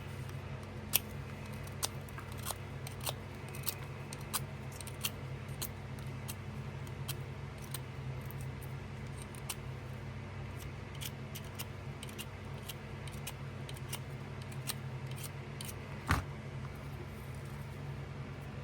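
Pocket knife cutting into a stick, making a run of sharp, irregular clicks with one louder knock near the end. A steady low hum runs underneath.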